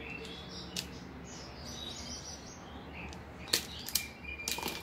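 Sharp clicks of a self-adjusting wire stripper's jaws gripping and snapping open as it strips the sheath off a flat power cable, a few of them, the loudest about three and a half seconds in. Birds chirp steadily in the background.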